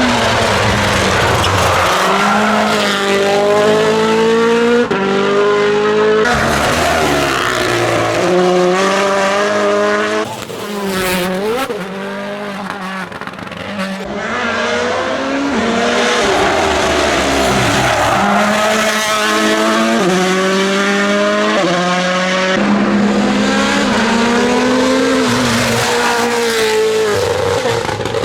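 Rally cars accelerating hard along a stage, each engine note climbing in pitch and dropping back with quick upshifts. Several cars are heard in turn, with abrupt changes between them, and one passes by with a quieter dip in the middle.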